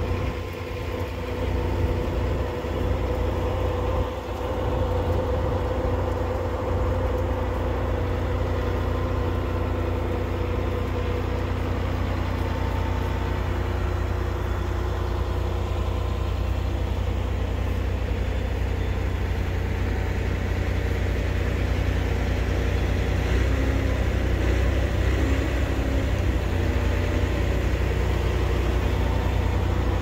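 Heavy engine running steadily at a constant speed, a deep even hum.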